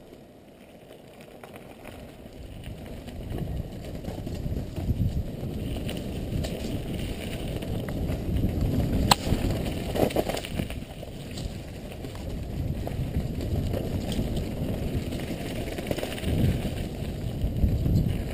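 Mountain bike riding down a dirt and leaf-covered trail: a steady rumble of tyres and rattling bike parts that grows louder as speed builds over the first few seconds, with scattered clicks and one sharp knock about nine seconds in.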